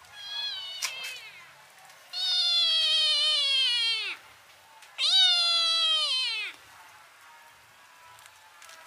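A kitten meowing loudly up at a person: a short, softer meow, then two long drawn-out meows, each sliding down in pitch at the end.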